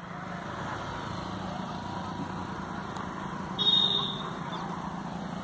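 Steady low drone of a distant motor under outdoor ambience, with a short, shrill, high-pitched tone about three and a half seconds in.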